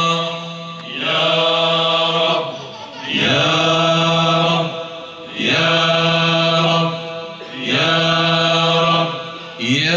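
Male vocal ensemble singing unaccompanied in long held, chant-like phrases, with a short breath between phrases about every two seconds.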